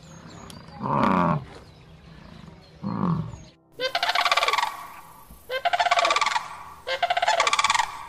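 Bison giving two short, low grunts that fall in pitch, about a second and about three seconds in. Then, from about four seconds in, a grey heron calling three times, each call loud and under a second long.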